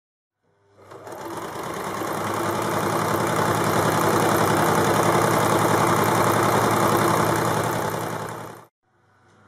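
Electric sewing machine top-stitching a folded skirt hem: the motor and needle start up and speed up over the first couple of seconds, run steadily, then slow and cut off near the end.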